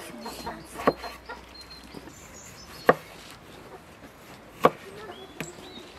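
Chef's knife chopping tomatoes against a wooden cutting board: four sharp, separate strikes at uneven spacing. Birds chirp faintly in between.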